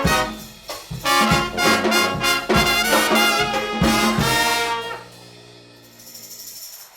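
Brass band playing: trumpets and trombones over a steady drum beat, ending on a held chord about four and a half seconds in that dies away.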